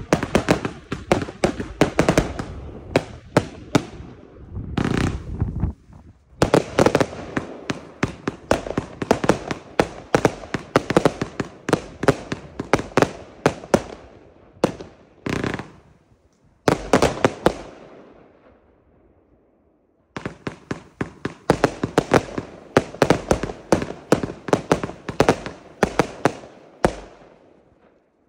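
Albert 'Candy Mountain' Z-fan compound firework cake firing: rapid volleys of sharp shots and bursts. The shots break off briefly twice, fade out for about two seconds past the middle, then start again for a last long volley.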